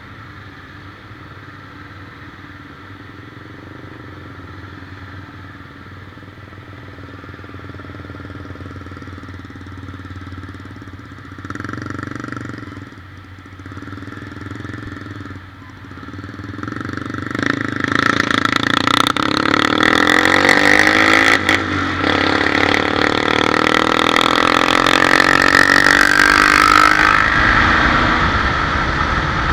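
Motorcycle engine running while riding, with a steady drone that grows much louder a bit over halfway through as a loud rushing noise joins it.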